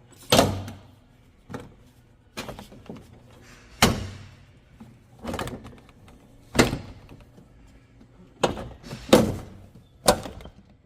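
Plastic rear trim panels of a Chevrolet Blazer being worked off, their stiff retaining clips snapping loose with sharp knocks and clacks, about nine in all at uneven intervals.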